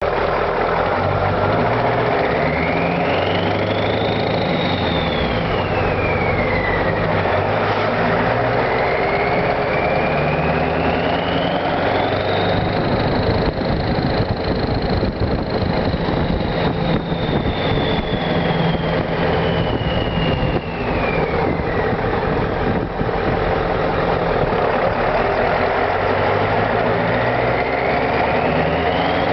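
1997 Ford F250 Powerstroke 7.3-litre turbo-diesel V8 with straight-piped exhaust stacks, running with a loud diesel rumble. Over it the turbocharger whistles, gliding up and down in pitch: it rises and falls once, then rises and holds for several seconds before falling, and starts rising again near the end.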